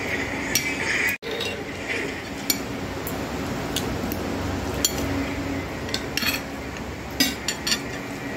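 Spoon and fork clinking and scraping against a plate during a meal: scattered, irregular sharp clicks over a steady hum.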